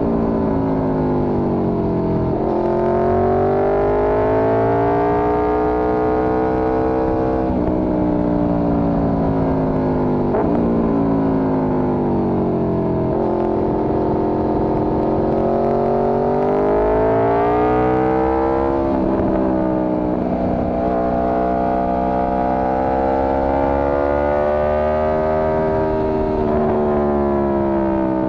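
Four-cylinder motorcycle engine under way, its pitch climbing under acceleration and then dropping suddenly at each upshift, several times in a row, between stretches of steady cruising.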